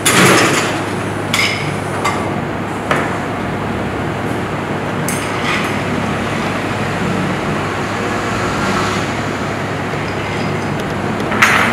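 Ice being stirred with a long bar spoon in a glass mixing glass: a steady swirling rattle of ice against glass. A few sharp clinks come in the first three seconds.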